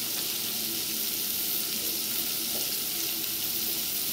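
Chopped onion and crushed garlic sizzling steadily in hot coconut fat in a pot on the stove.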